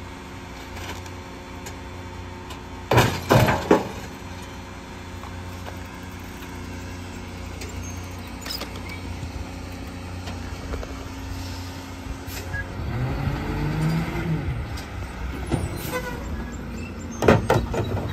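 Rear-loader garbage truck's diesel engine idling, with loud clatters of bulk junk being thrown into the rear hopper about three seconds in and again near the end. Partway through, the engine speeds up and settles back, as it does when the packer blade runs.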